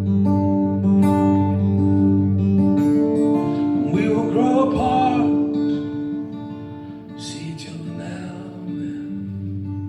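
Acoustic guitar strummed during an instrumental passage of a live song. A brief voice sounds over it about four seconds in, and the playing softens after about six seconds.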